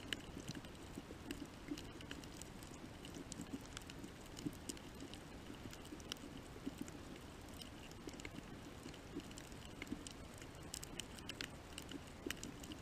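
Underwater coral-reef ambience: scattered short clicks and crackles, a few a second and irregular, over a low steady rumble.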